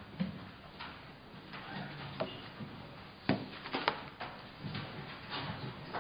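Scattered sharp clicks and knocks over a low rustle as papers are gathered up at a wooden lectern, with the two sharpest knocks a little past three seconds in and near four seconds in.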